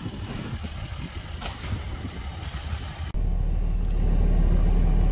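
Low outdoor rumble, then about three seconds in an abrupt change to a louder, steady low rumble heard from inside a vehicle cab, typical of a running engine.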